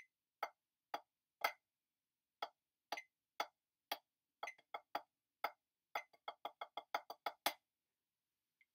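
Wooden drumsticks striking a snare practice pad in steady sharp taps about twice a second, then a quicker run of strokes that ends on a loud final accent about three-quarters of the way in. A metronome clicks at 40 beats a minute, once every second and a half, underneath and after the playing.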